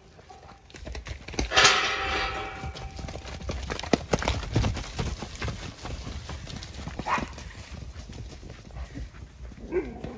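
Horses' hooves thudding as they run past on soft ground, with a loud neigh about a second and a half in.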